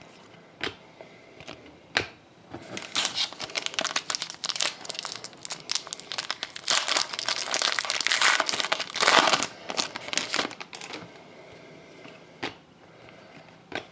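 Panini Prizm trading-card pack wrapper being torn open and crinkled, a dense crackling run from a few seconds in until about two-thirds through, with a few single clicks of card handling before and after.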